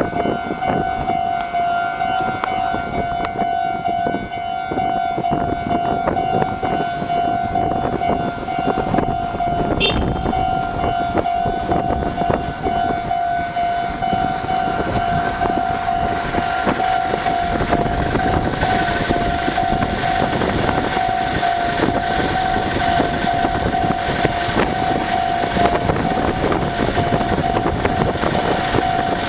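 Japanese railway level-crossing alarm ringing steadily, a single pulsing electronic bell tone repeated over and over. From about two-thirds of the way through, a rising rush of noise is added as the train approaches the crossing.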